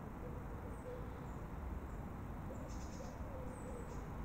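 Outdoor ambience: a steady low background hiss and rumble with faint high bird chirps, a few single notes and then a short cluster of trilled chirps about two and a half seconds in.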